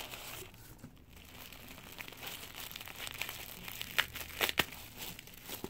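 White tissue-paper wrapping crinkling and rustling as it is handled and unfolded, with a few sharper crinkles about four seconds in.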